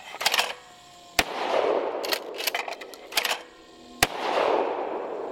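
Two shots from a Remington 870 pump-action shotgun with an 18-inch barrel, about three seconds apart, each echoing away for a second or more. Between them come several sharp mechanical clacks of the gun being handled, the kind made when the pump is worked for the next round.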